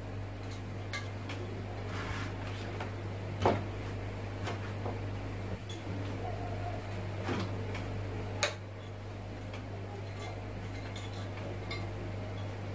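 Scattered light clicks and knocks from a CRT neck circuit board and its wires being handled, the loudest about three and a half seconds in, over a steady low hum.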